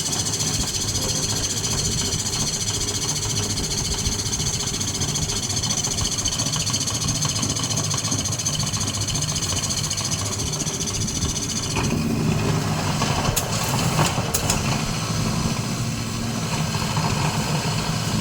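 Electric kerisik machine grinding fried grated coconut, its motor running steadily with a high whine over a low hum. About twelve seconds in the sound changes: the whine drops away and a rougher low rumble with a few sharp ticks takes over.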